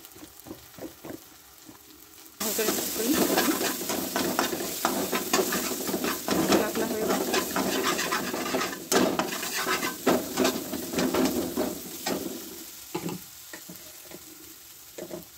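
Tomato-and-spice masala frying in oil in a pan, sizzling while a slotted metal spatula stirs and scrapes it, with many small clicks of the spatula against the pan. The sizzle starts suddenly about two seconds in and dies down over the last few seconds.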